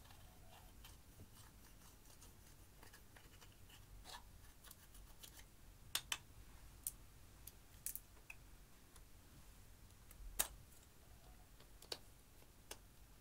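Quiet scraping with scattered sharp clicks as a thin metal tool pries and crumbles pressed eyeshadow out of a plastic palette, the loudest click about ten seconds in.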